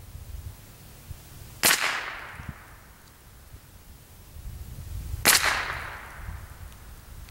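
Two .22 rifle shots about three and a half seconds apart, each a sharp crack with a short fading echo.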